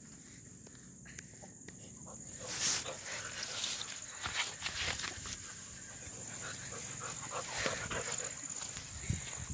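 Saint Bernard puppy close to the microphone, rustling through grass with dog sounds that start about two and a half seconds in. A steady high tone runs underneath.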